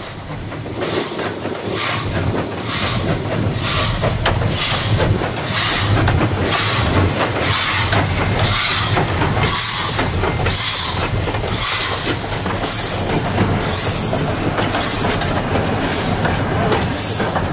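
Steam locomotive NM 25 passing close by, its puffs of steam exhaust coming about once a second. After about twelve seconds the chuffs fade, leaving the steady rumble and clatter of the wooden carriages rolling past on the rails.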